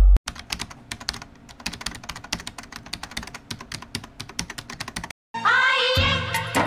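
Computer keyboard typing, rapid irregular key clicks for about five seconds. A Bollywood film song with singing begins loudly near the end.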